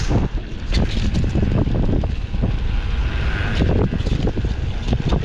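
Wind buffeting the microphone of a mountain bike rolling along a dirt singletrack, a Rockrider XC900S, with frequent short knocks and rattles as it rides over bumps.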